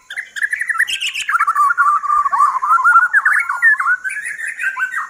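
White-rumped shama singing close up: a loud, continuous fast warble of rapid chattering and trilling notes. Near the end it turns to a run of repeated sweeping notes.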